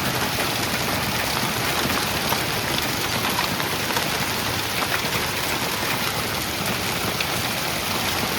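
Heavy rain pouring down in a severe storm, a steady dense hiss with scattered sharp ticks of impacts.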